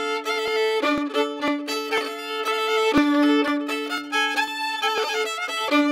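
Violin music: a fiddle melody played over a steady held low drone note.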